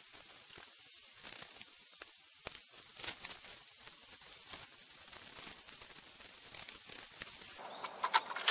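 Rustling and crinkling of nylon tent fabric as the tent door is handled and rolled back, with scattered soft knocks. Near the end come a few sharp clicks as gear is handled inside the tent.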